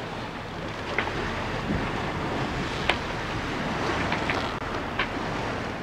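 Sea rushing along a sailing catamaran's hulls with wind buffeting the microphone: a steady wash, with a few brief ticks.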